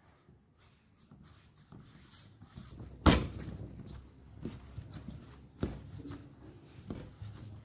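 Hands kneading chhena against a stainless steel plate: soft pressing and rubbing with a few knocks of the plate, the loudest about three seconds in and another more than halfway through.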